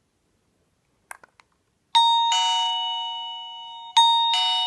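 Smart video doorbell chime playing a two-note ding-dong, a higher note then a lower one, twice, each note ringing and slowly dying away; a few faint clicks come just before it.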